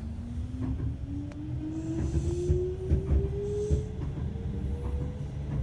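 Kintetsu local electric train accelerating away from a station, heard from inside the passenger car: the traction motors' whine rises steadily in pitch, over the low rumble of the wheels on the rails and occasional knocks from the track.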